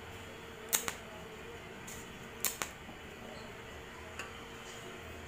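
TIG welding torch striking its arc in short pulses: sharp clicks in two close pairs and one fainter click later, over a steady hum.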